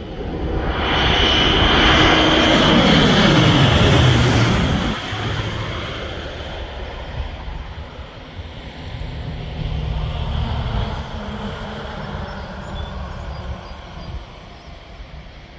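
Crop-dusting airplane flying low overhead: its engine grows loud, then its pitch drops sharply as it passes, about four seconds in. After that, a fainter low engine drone continues as it works the field.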